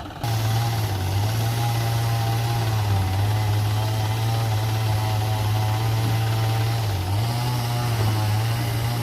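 Petrol engine of a wood-cutting machine running at a steady speed. It comes in abruptly just after the start, holds an even pitch, and dips briefly about seven seconds in.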